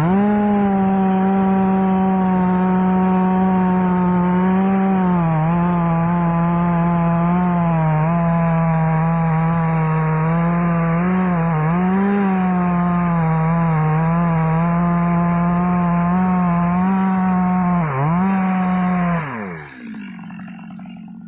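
Stihl MS 250 two-stroke chainsaw running at full throttle while cutting acacia wood, its pitch dipping now and then as the chain takes load. About eighteen seconds in it dips and revs once more, then drops back to idle near the end.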